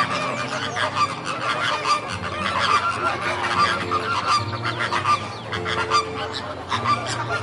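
A flock of geese or other waterfowl calling over one another: a dense, unbroken run of overlapping short honking calls.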